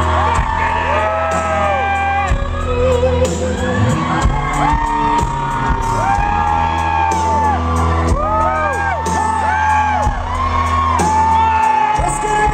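Live country band playing loudly, with acoustic and electric guitars, bass and drums, and whoops from the crowd.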